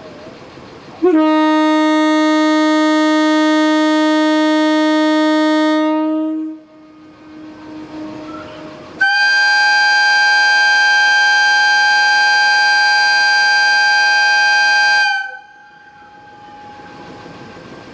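Two long blasts of Japanese railway air horns from a 189 series train and an EF63 electric locomotive: first a lower-pitched horn held for about five seconds, then after a short pause a higher, brighter horn held for about six seconds, each cutting off abruptly.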